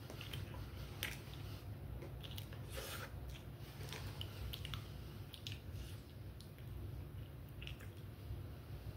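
A person chewing a mouthful of a chicken sandwich, with irregular wet mouth clicks and smacks over a steady low hum.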